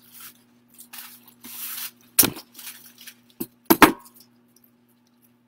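Rustling as plastic craft picks are handled, then sharp metallic clicks, the loudest just after two seconds and a double click near four seconds: wire cutters snipping through the wire stems of a floral pick to split it into pieces.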